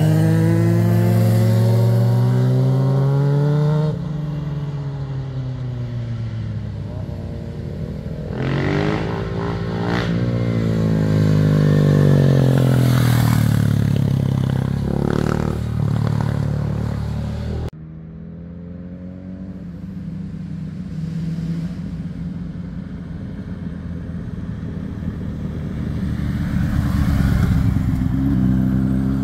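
Sport motorcycles passing one at a time through a hairpin bend, their engines rising and falling in pitch as they slow for the corner and accelerate out of it. The sound changes abruptly twice, about four seconds in and a little past halfway.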